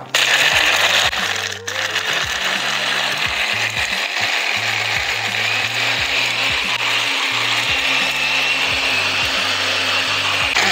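Small personal blender running, its blade crushing ice with banana and liquid into a smooth mix. Its whining note rises slightly over the second half, and it cuts off at the end.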